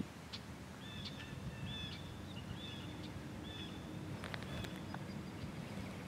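Outdoor ambience: a small bird gives a series of short, repeated chirps, over a steady low rumble and a few faint clicks.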